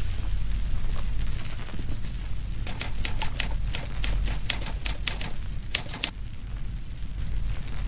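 Typewriter key-strike sound effect: a quick run of about a dozen clacks, about four a second, with a short pause before the last few. It plays over a steady low rumble.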